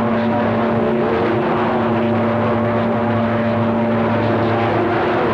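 CB radio receiver on a skip channel putting out a loud, steady rush of static. Several steady whistling tones sit in it: heterodynes from overlapping carriers, with no voice on the channel.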